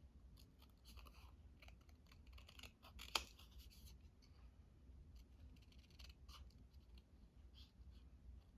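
Scissors cutting paper: faint, irregular snips and scratches, with one sharper click about three seconds in.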